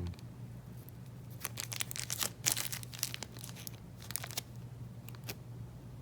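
Packaging rustling and crinkling as it is handled, in a cluster of crackly bursts between about one and a half and three seconds in, then a few lighter clicks. A low steady hum runs underneath.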